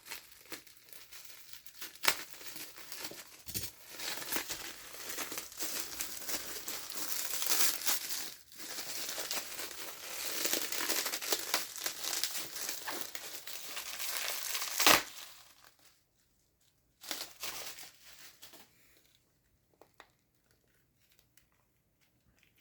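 Packaging crinkling and rustling as the weather radio's AC adapter is unwrapped, with a sharp click at the start and near the end. It stops about two-thirds of the way through, and a short rustle follows.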